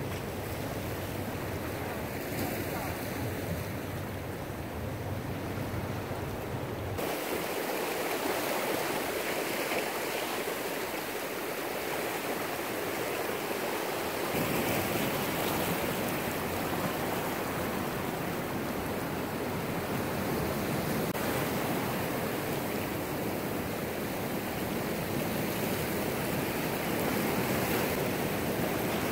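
Ocean surf washing over shoreline rocks, a steady rushing noise. It changes abruptly about seven and fourteen seconds in.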